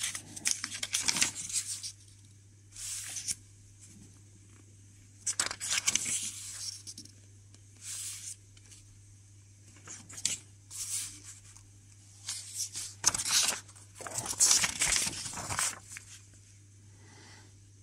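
Pages of an old paper instruction booklet being turned and handled, in repeated short bursts of paper rustling every second or two, with quiet gaps between.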